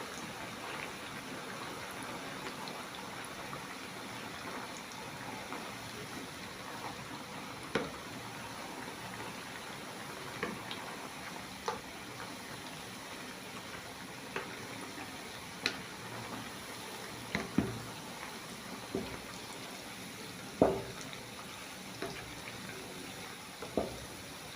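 Chin chin dough pieces deep-frying in hot oil, a steady sizzling hiss, with occasional sharp knocks spread through it.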